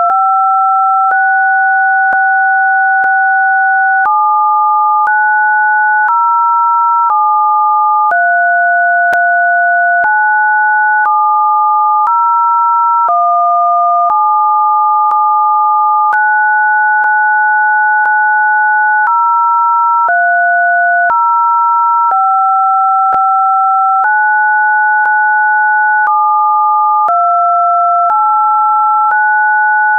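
Computer-generated test signal: two pure sine tones sounding together as a pair between about 700 Hz and 1.5 kHz. The pair steps to new pitches on a one-second grid, holding some pairs for two or three seconds, with a faint click about once a second.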